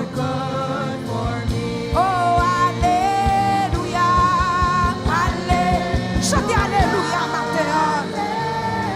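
Live gospel worship music with a steady beat under held, sliding sung notes, during a break between the song's lyrics.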